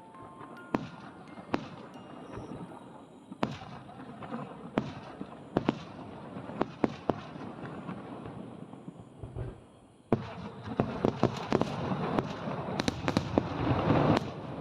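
Fireworks bursting: scattered sharp bangs at first. Then, about ten seconds in, a dense run of booms and crackling builds to its loudest near the end.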